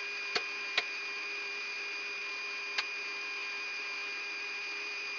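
Cockpit voice recorder background of a Yak-42D on the ground before engine start: a steady electrical hum and whine over hiss, broken by a few sharp clicks in the first second and again about three seconds in.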